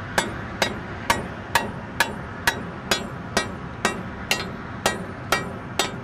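Ribbed steel rod (rebar) tapped upright against a concrete bridge deck, a sharp ringing strike about twice a second. This is a rod sounding test, listening for the hollow note of hidden delaminations under the surface.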